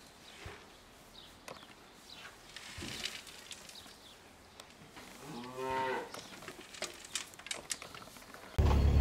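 A calf moos once, a short call that rises and then falls in pitch, over faint clinks and rustles of metal buckets and feed being handled. Loud music cuts in abruptly near the end.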